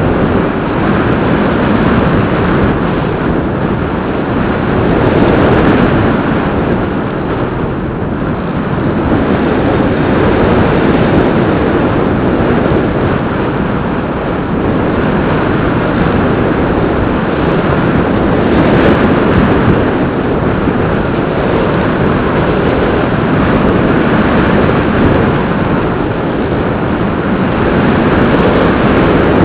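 Rushing flight noise picked up by the onboard camera of a Bixler 2 radio-controlled plane in flight: airflow over the airframe and microphone, rising and falling a little in level.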